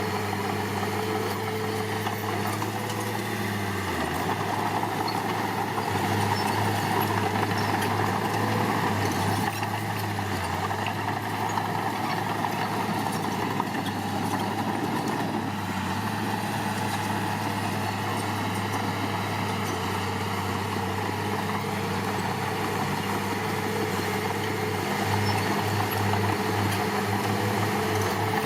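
Heavy diesel engine of construction machinery running, steady with small changes in load: the pitch dips briefly about four seconds in, and it grows a little louder for a few seconds after that and again near the end.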